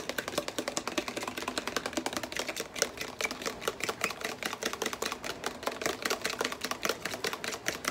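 A small fork whisking egg batter in a blender jar, its tines tapping the sides in a quick, steady run of clicks.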